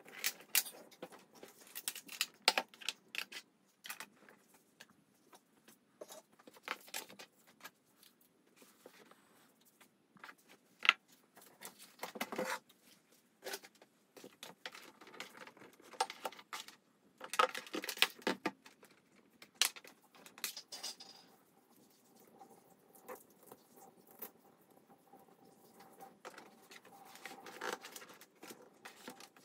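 Desk tidying: irregular light taps, clicks and paper rustles as papers, a notebook and other small objects are picked up and put down on a desk.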